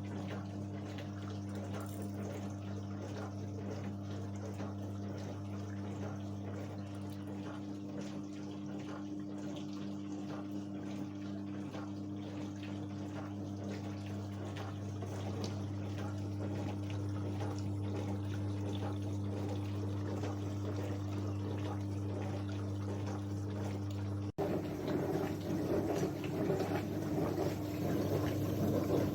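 Dellonda DH224A mini tabletop dishwasher running a wash cycle: a steady pump hum under water splashing inside. Near the end the splashing gets louder.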